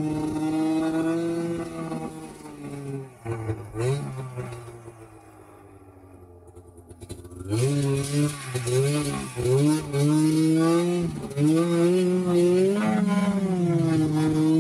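2005 Arctic Cat Sabercat snowmobile's two-stroke engine running steadily under throttle, then let off about three seconds in and dropping to a quiet idle. About halfway through it is blipped several times in quick rises and falls of pitch, then it pulls steadily at high revs to the end.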